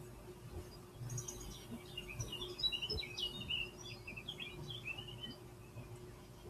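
Recorded birdsong played from a YouTube bird video through computer speakers: a busy run of quick chirps and twitters, starting about a second in and fading out after about five seconds.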